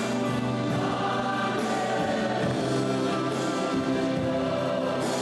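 Gospel worship music with a choir singing long held chords.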